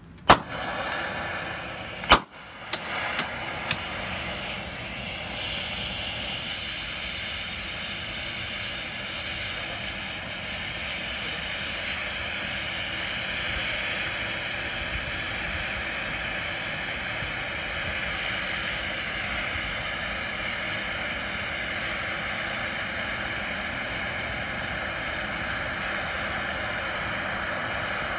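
Ground-based cloud-seeding flare igniting with a sharp crack about two seconds in and a few smaller pops, then burning with a steady rushing hiss.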